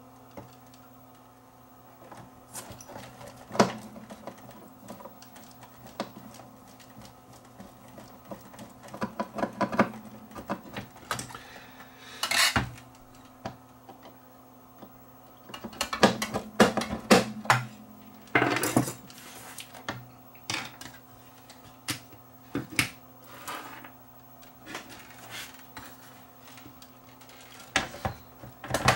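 Irregular metallic clinks, clicks and knocks of hand tools and small parts being handled while reassembling a CRT monitor, in clusters with quieter gaps, over a faint steady hum.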